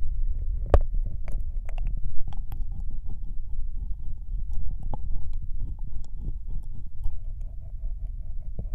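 Binaural ear-licking: wet licks and mouth clicks close against a dummy-head microphone's ear, many short smacks over a steady low rumble.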